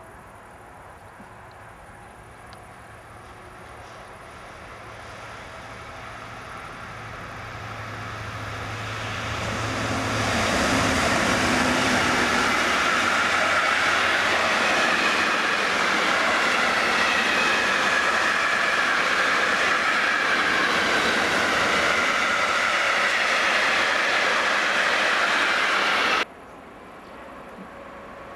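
Freight train of tank wagons hauled by a diesel locomotive: a low engine hum grows louder as the train approaches, then the wagons pass close, their wheels running loudly on the rails with a thin, wavering squeal that slowly falls in pitch. The sound cuts off abruptly near the end, leaving a quieter, more distant train.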